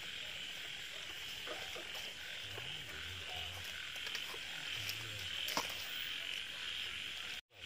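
Frogs croaking at night in a paddy-field ditch, repeated low calls over a steady high chorus of insects, with a few faint clicks; the sound cuts out for an instant near the end.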